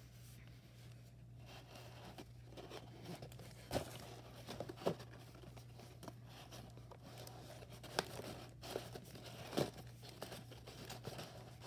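Hand-turned cardboard knob of a homemade cardboard vending machine, rubbing and scraping with crinkling, and a few light knocks as it turns and the prize flap is handled.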